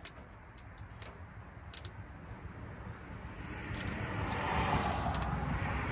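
Scattered light clicks and taps of wire clips and metal as ignition wiring is connected by hand on an old truck engine. A rushing noise swells over the last couple of seconds.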